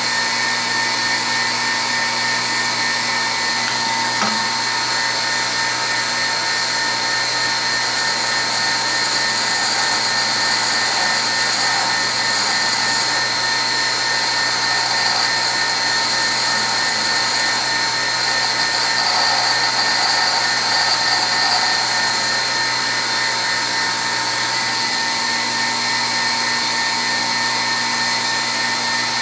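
A 1/2 HP bench grinder running steadily with its constant motor whine while a lathe form tool is freehand ground against the wheel. Stretches of grinding hiss come and go as the bit is pressed to the wheel.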